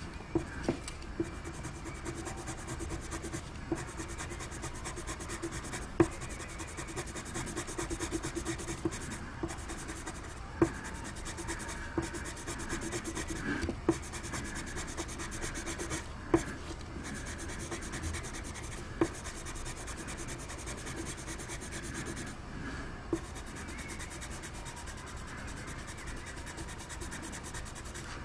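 Coloured pencil scratching on paper in quick, short back-and-forth shading strokes, with a sharp tick every few seconds.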